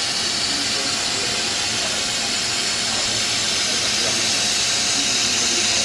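A steady, even hiss with no distinct clicks, bursts or changes.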